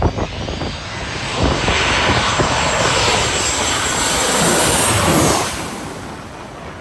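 Airplane passing low overhead: its engine noise swells about a second and a half in, stays loud with a sweeping change in pitch as it goes by, then fades away near the end.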